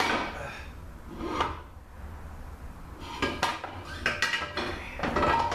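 Metal parts clinking and scraping inside a Ford AOD automatic transmission case as the direct clutch drum is worked loose and pulled out. A scrape comes in the first second and a half, then a dense run of quick metallic clinks from about halfway.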